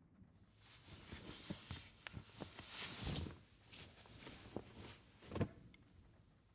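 Footsteps and rustling of cloth, mixed with light knocks and one louder thump about five seconds in.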